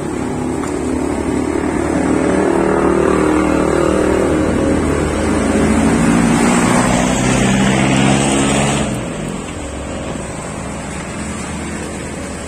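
Motorcycle engine running and revving, its pitch and loudness rising for several seconds before it drops back to a lower idle about nine seconds in.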